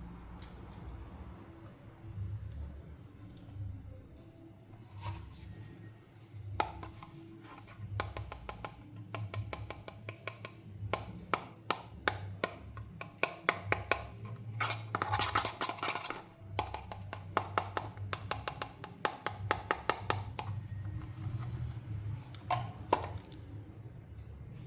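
Plastic toy pieces being handled, giving a long run of quick clicks and light taps, thickest in the middle, with faint ringing tones between them.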